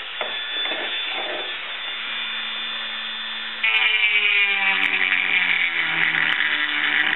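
Small rotary tool (Dremel-type die grinder) with a carbide bit, running with a steady whine. About three and a half seconds in it gets louder and its pitch slowly sags as the bit grinds into the fiberglass mold surface, digging out a deep scratch.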